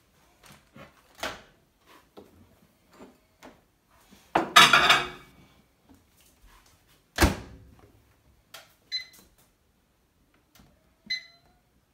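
Microwave oven in use: handling clatter as a bowl of marshmallows goes in, the door shut with a sharp thunk a little past halfway, then two short keypad beeps about two seconds apart as the cooking time is entered.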